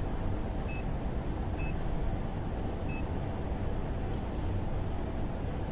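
Three short, faint electronic beeps from a HABOTEST HT122A pen-type digital multimeter during its three-phase rotation sequence test, over a steady low hum.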